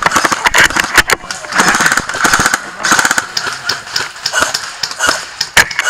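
Airsoft gunfire: rapid clicking shots, bunched into several short bursts of automatic fire with single cracks scattered between them.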